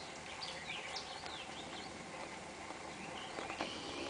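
Wild birds chirping: a quick run of high, sweeping chirps in the first two seconds over a steady outdoor hiss, then a held high note and a few sharp clicks near the end.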